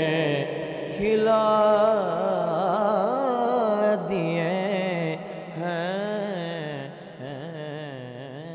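A man singing a naat, an Urdu devotional poem, solo, in long held notes with wavering, ornamented melisma. The voice trails off near the end.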